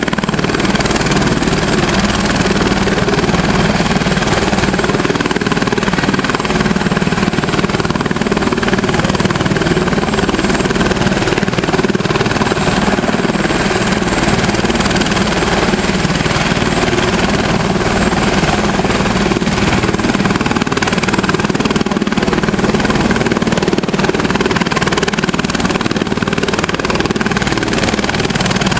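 Turbine helicopter running steadily on the ground, a continuous loud engine and rotor noise with no change in pitch.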